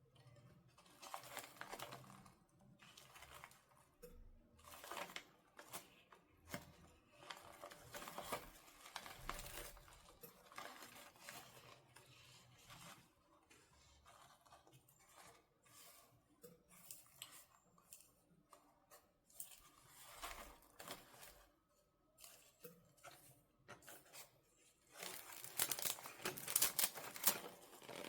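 Toy doll packaging being opened by hand: irregular crinkling, rustling and tearing, loudest near the end.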